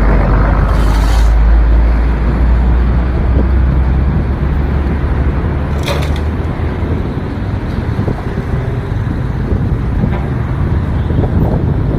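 Road traffic passing, with a heavy low rumble in the first few seconds as a large vehicle goes by, and a short sharp clank about six seconds in.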